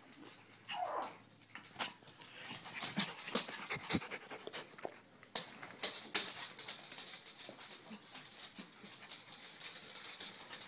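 Small dogs, a chihuahua and dachshunds, panting, with a short falling whine about a second in and many quick clicks and scuffles.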